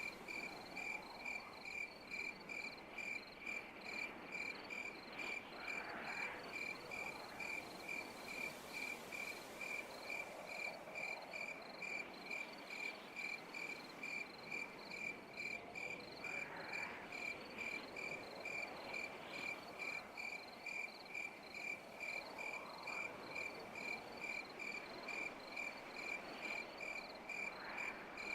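Insect chirping: a steady high chirp repeating about twice a second, with fainter rising and falling calls every few seconds.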